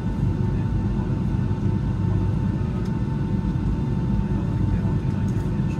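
Boeing 757 jet engines heard from inside the passenger cabin: a steady low rumble with a faint steady whine above it.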